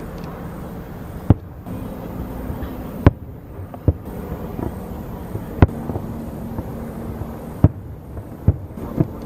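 Fireworks going off as a string of seven sharp, irregularly spaced bangs over a steady low hum.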